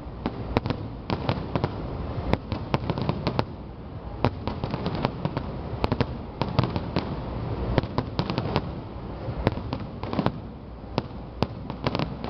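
Fireworks display: many shells bursting in quick, irregular succession with sharp bangs and crackling over a continuous low rumble.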